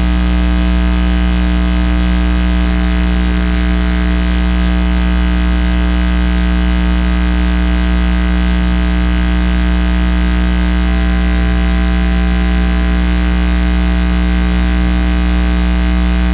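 Loud, steady electrical hum-buzz with no change in pitch or level, an audio fault in the recording feed that has replaced the speech.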